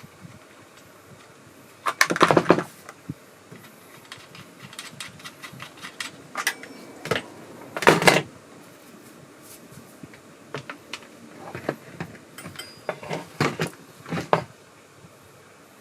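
Scattered clicks, knocks and clatter of chainsaw parts being handled during assembly, with louder clatters about two seconds in and about eight seconds in, and a run of sharp clicks near the end.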